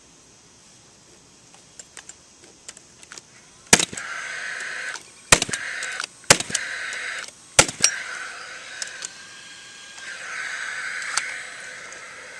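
Paslode cordless fuel-cell nailer driving nails into wooden framing: four sharp shots over about four seconds, with its fan whirring steadily between and after the shots. Light clicks of the tool being set in place come before the first shot.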